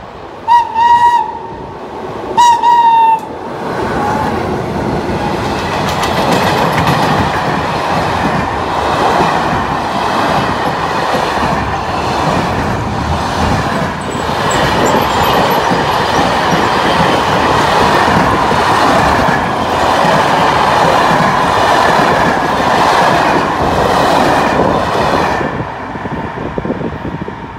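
An FS class E652 electric locomotive sounds two short horn blasts, the loudest sounds here. Its freight train then rolls past at close range with a steady loud rolling and rattling of wagon wheels on the rails, which falls away near the end as the last wagons clear.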